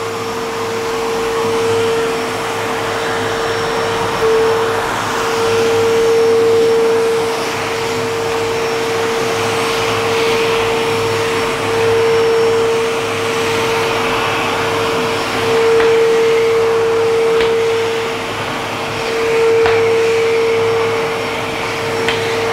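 Bosch GAS 15 PS 1,100 W wet/dry extractor running with a steady whine while its floor nozzle, fitted with a squeegee insert in place of the brush, is drawn over a wet surface sucking up water. The rush of air swells and eases every few seconds as the nozzle moves.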